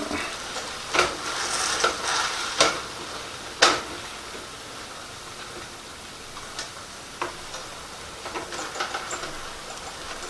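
Venison burgers sizzling steadily in a frying pan, with a series of sharp clicks and scrapes of a utensil against the pan, several early on and a quick cluster near the end.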